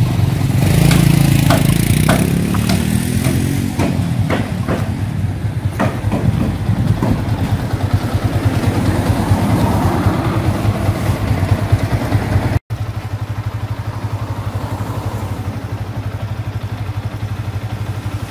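Motorcycle engine pulling away, rising in pitch as it accelerates over the first few seconds, then running along with a few light clicks. About two-thirds of the way through it breaks off abruptly, and after that a motorcycle engine idles steadily.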